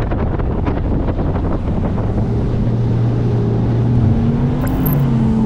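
Bass boat's outboard motor running at speed on plane, a steady drone with hull and water noise and wind buffeting the microphone; the engine note shifts slightly about four seconds in.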